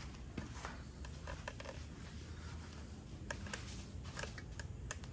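Low room rumble with scattered light clicks and ticks, a few close together around three to five seconds in. No engine is running.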